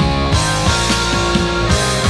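Background rock music with a steady drum beat and sustained guitar chords.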